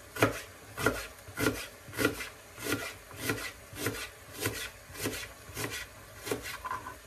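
Knife cutting vegetables on a wooden cutting board, a steady even stroke a bit under two times a second.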